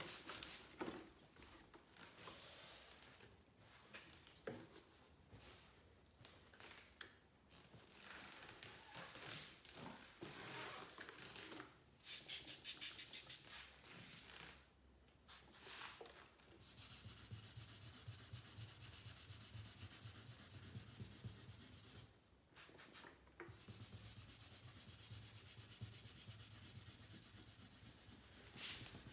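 Sandpaper rubbed by hand over the car's paint, in irregular rasping strokes. A low steady hum runs under it through the second half.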